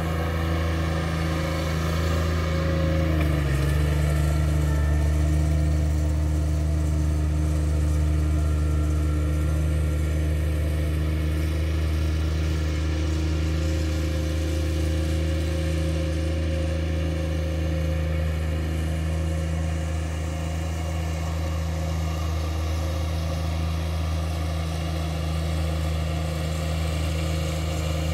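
Ride-on mower's engine running steadily under mowing load, with a brief dip in pitch about three seconds in.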